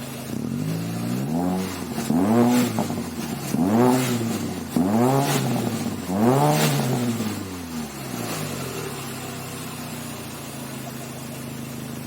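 Proton Savvy's 1.2-litre Renault D4F four-cylinder engine breathing through a Spoon N1 exhaust muffler, revved in about five quick blips, each rising and falling in pitch, then settling back to a steady idle for the last few seconds.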